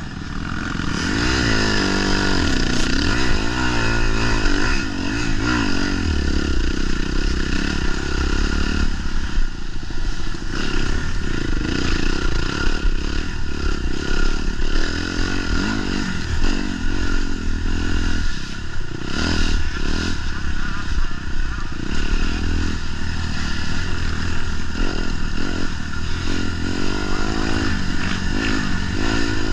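Off-road dirt bike engine revving up and down without a break as the bike is ridden hard over rough ground, with scattered knocks and clatter.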